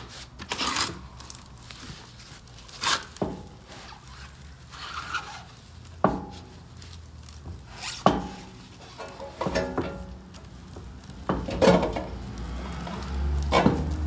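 Handling noise: clothing rubbing against the microphone, with scattered knocks and clicks. A low steady hum comes in about two-thirds of the way through.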